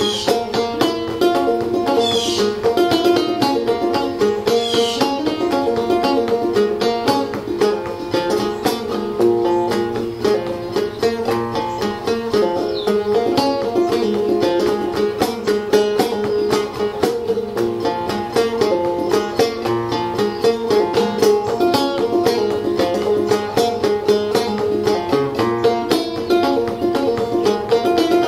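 Solo banjo played clawhammer style: a quick, steady run of plucked notes and brushed strums in an even rhythm.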